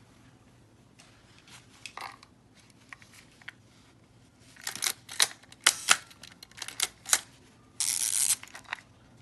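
Mechanical clicks and snaps from a Nikon F film SLR's controls being worked by hand: a few faint clicks, then a quick run of loud sharp clicks about halfway through, and a brief rasping whirr near the end.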